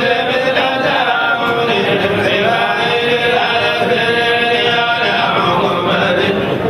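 Male voices chanting an Islamic devotional chant, one continuous melodic line with long held notes that slide slowly between pitches.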